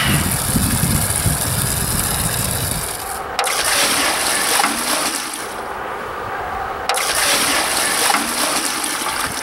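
Water poured from a bucket into a plastic tub: a steady splashing gush as the tub fills with mixing water for the insulation.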